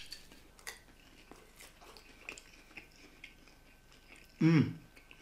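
A person chewing a mouthful of lentil pâté in puff pastry, with small soft crunching clicks. About four and a half seconds in comes a short vocal hum.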